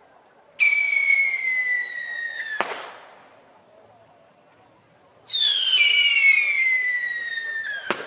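Two whistling fireworks, each a loud whistle gliding downward in pitch for about two seconds and ending in a sharp bang. The second starts about five seconds in.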